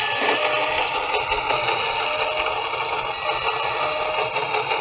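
Scale RC tracked loader (CAT 963B model) driving over loose soil: a steady, high-pitched whine from its electric drive and gearing.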